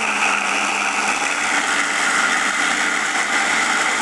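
Electric blender running steadily at full speed, grinding the spice paste of chillies, shallots, garlic, ginger and candlenuts.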